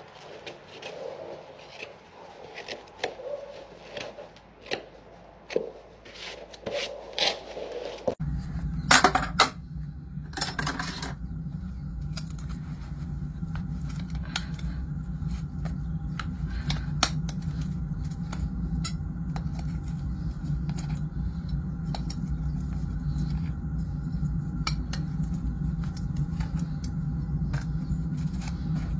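A hoof knife paring a horse's hoof in short, irregular scrapes. About eight seconds in, a steady low hum starts; over it, a metal tool scrapes twice loudly and then clicks and taps against the steel horseshoe of a dirt-packed shod hoof.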